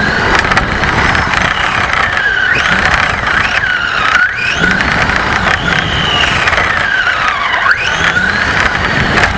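RC car's motor whining, its pitch rising and falling over and over as the car speeds up and slows, over a steady rumble of its wheels on the ground.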